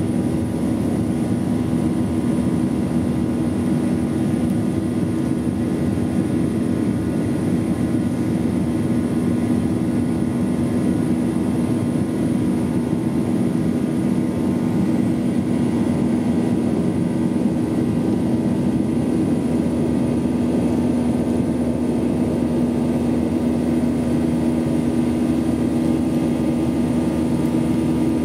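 Airliner cabin noise during the climb after takeoff: the engines' steady drone heard from inside the cabin, with two strong low hums over a constant rushing noise.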